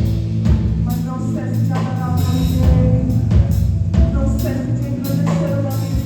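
Live band music with a drum kit playing along under sustained instrument notes.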